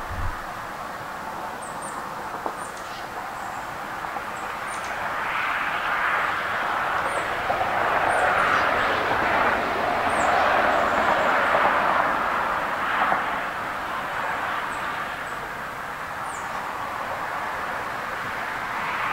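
Steady highway traffic noise from cars and trucks, tyres on pavement, swelling as vehicles pass and loudest from about five to twelve seconds in. A few faint high chirps over it.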